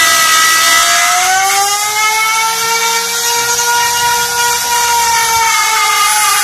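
Handheld electric router cutting a groove into a mahogany rifle stock: a loud, steady high-pitched whine that climbs in pitch about a second in and sinks again near the end as the bit takes and eases off the cut.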